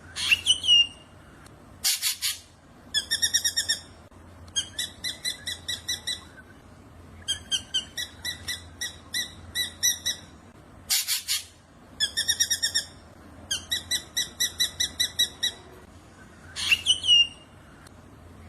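Black drongo singing: quick runs of ringing, metallic notes about eight a second, broken by a harsh rasping note twice and a sharp upward-sweeping whistle near the start and near the end.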